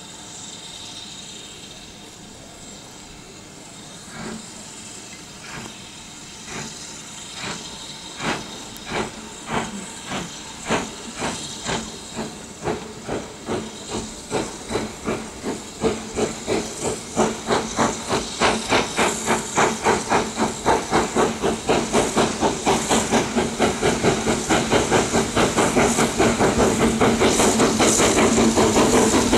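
BR Standard Class 9F 2-10-0 steam locomotive starting a train, with a steady hiss of steam. Its two-cylinder exhaust beats begin slowly, about one a second, and quicken to about three a second, growing louder as it draws near.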